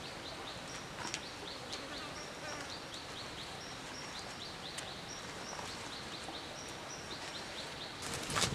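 Forest ambience with many short, high chirps repeating in quick series and a flat high note coming back about once a second. Near the end, a louder burst of crackling from a wood fire throwing sparks.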